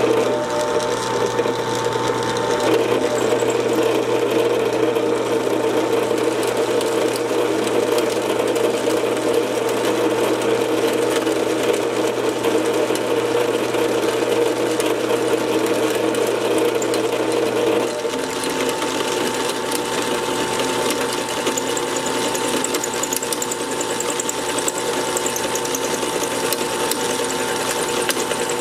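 Drill press running and cutting a keyway into a metal automotive pulley, a steady mechanical chatter. About two-thirds of the way through the sound changes, its low hum dropping away.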